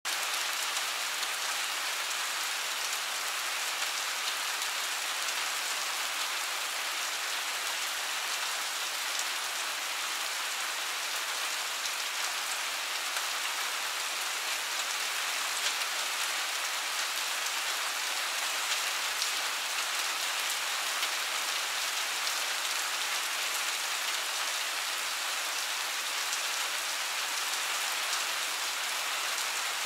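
Steady light rain falling on a wet paved terrace: an even hiss with small drop ticks scattered through it.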